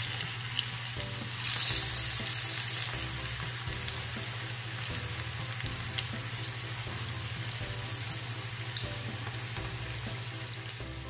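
Cabbage pakoda batter deep-frying in hot coconut oil: a steady sizzle of bubbling oil, swelling briefly about two seconds in.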